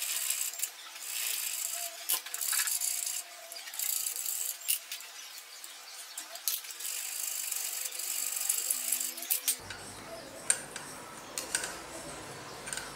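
Coarse bastard file rasping across a cast-iron weld bead in repeated strokes about a second long, taking down the hard electrode deposit. After about nine and a half seconds the strokes give way to scattered light clicks and scrapes.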